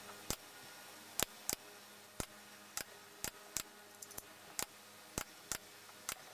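Pneumatic nail gun firing nails into a wooden box, about a dozen sharp shots at uneven intervals, some in quick pairs.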